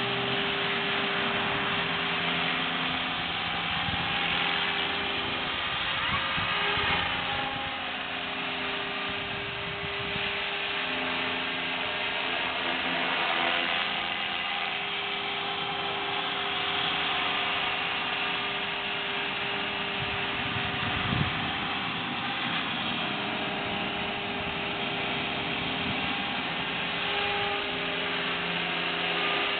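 Align T-Rex 500 electric RC helicopter in flight: the steady whine of its brushless motor and gear drive over the rush of the spinning rotor blades, the pitch gliding up and down a few seconds in as it manoeuvres. A single short knock about two-thirds of the way through.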